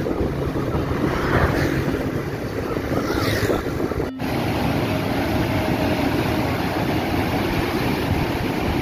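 Wind rushing over the microphone, with engine and road noise, during a motorcycle ride. The sound cuts out briefly about four seconds in, then a steady rushing noise goes on.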